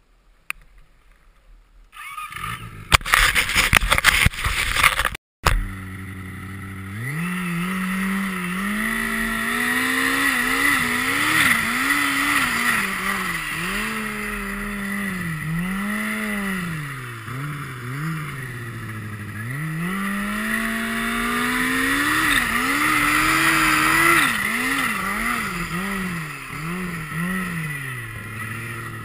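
Turbocharged snowmobile engine revving up and down over and over as the sled rides, over a steady hiss. Before the engine comes in, about two seconds in, there are a few seconds of loud clattering knocks that cut off suddenly.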